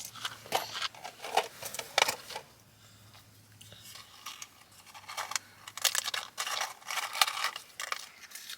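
A toddler eating chips: irregular crunching and crinkling of the chips and their packet, coming in quick clusters, busier in the second half.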